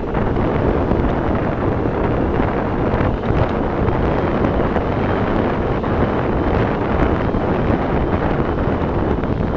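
Steady wind buffeting the microphone on a moving Yamaha Tricity scooter, with the scooter's road and engine noise blended underneath.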